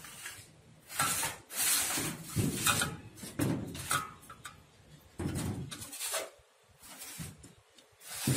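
Irregular rustling and scraping from handling food: wooden chopsticks picking at steamed fish on a steel platter while a rice-paper wrap with herbs is handled, in several short bursts.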